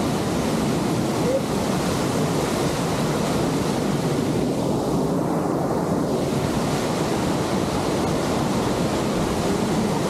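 Steady rush of water with wind buffeting the microphone.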